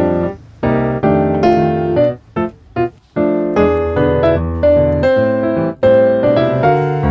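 Background piano music, with a couple of short pauses and clipped notes about two to three seconds in.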